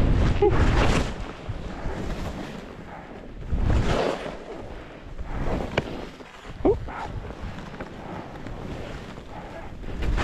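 Skis hissing over snow while wind buffets a GoPro's microphone during a fast descent. The rush comes in surges: one at the start, another about four seconds in and a third at the end. There is a short sharp sound about two-thirds of the way through.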